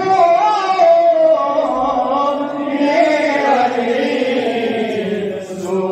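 A man's solo voice chanting a Balti qasida, a devotional poem, in long drawn-out melodic phrases. There is a short breath break near the end.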